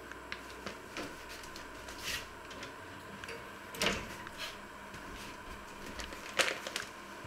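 Built-in oven door being opened: a series of clicks and knocks, the loudest about four seconds in as the door comes down, with another knock a couple of seconds later and a faint steady hum underneath.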